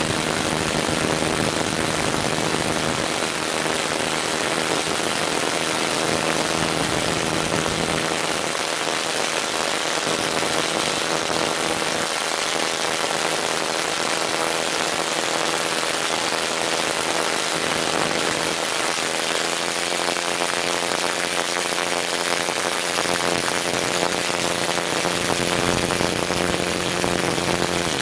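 Two impact wrenches hammering together, a continuous rattling impact noise as they drive long threaded rods into wood. It stops abruptly at the end.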